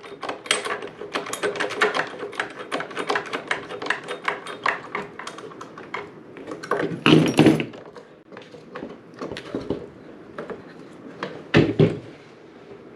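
Rapid, irregular light clicks and taps of small hardware and a hand tool as a bolt is fitted and tightened on a model boat's strut, with a louder knock about seven seconds in and another shortly before the end.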